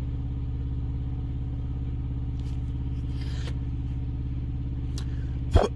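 Diesel engine idling steadily, an even low hum, with a faint click about five seconds in and a sharp knock just before the end.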